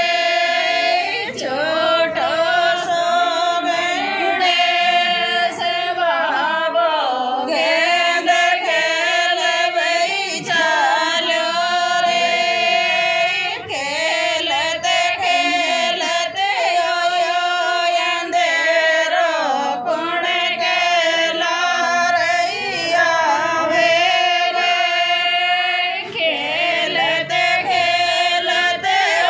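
A woman singing a song solo, in long held notes that bend and glide in pitch, with short breaks for breath every few seconds.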